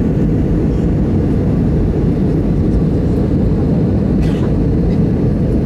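Steady, deep cabin noise of a jet airliner descending on approach, engine and airflow noise heard from inside the cabin over the wing.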